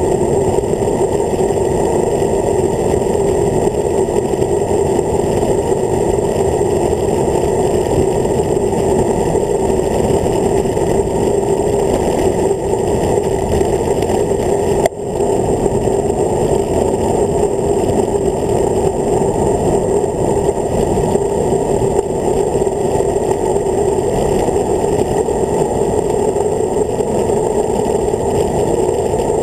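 Wind rushing over the microphone of a handlebar-mounted camera on a road bike descending at speed: a loud, steady low rumble, with one brief click about halfway through.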